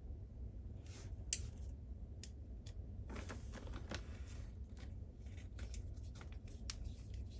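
Light clicks and scraping of hands working on the plastic parts of a cordless vacuum's roller head, with one sharp click about a second in and a run of quick clicks in the second half, over a steady low hum.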